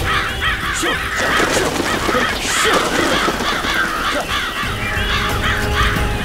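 A flock of crows cawing, many calls overlapping one another throughout, over a low background rumble.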